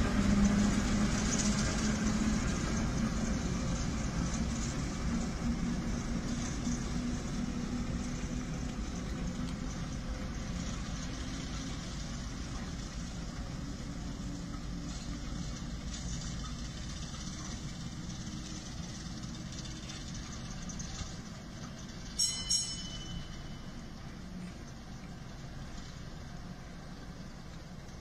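British Rail Class 08 diesel shunter's engine running as it pulls its brake vans away, fading steadily with distance. About two-thirds of the way through there are two short high-pitched tones, close together.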